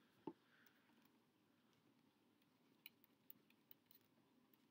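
Near silence, with a soft knock a fraction of a second in, then a run of faint, sharp clicks about three seconds in: a pen stylus tapping and scratching on a writing tablet as equations are handwritten.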